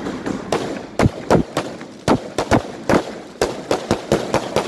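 Aerial fireworks bursting: a rapid, irregular string of sharp bangs and cracks, several a second, loudest about a second in.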